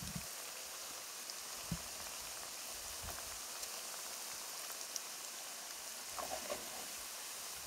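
Ciuriș dough pastries deep-frying in a pan of hot oil: a steady sizzling hiss with a few faint pops.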